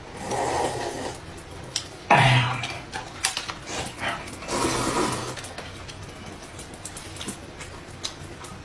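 Eating noises from people eating rice noodles and meat: slurping and chewing, with a loud throaty cough about two seconds in and a few smaller mouth sounds after it.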